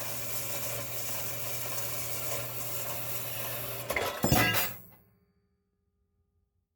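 Bandsaw running and cutting through half-inch brass plate: a steady motor hum under a cutting hiss. About four seconds in come a few sharp metallic clinks and a clatter, and then the sound fades out.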